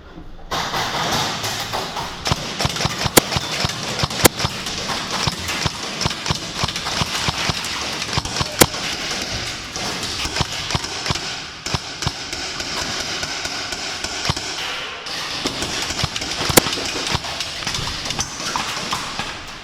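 Close rustling and knocking of an airsoft player's gear and footsteps while moving, with four sharp snaps about three, four, eight and a half and sixteen and a half seconds in.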